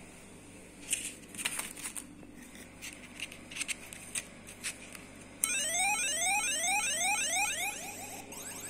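A few handling clicks and taps, then, about five seconds in, a small electronic sounder starts a rapid, repeated rising whoop like an alarm, about three sweeps a second, fading near the end.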